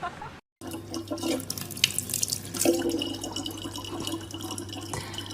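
Water running, as from a tap, with scattered small splashes and clicks.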